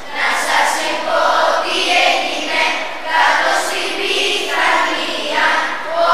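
A children's choir singing traditional Greek Easter-season carols (kalanta) together, in short phrases with brief breaths between them.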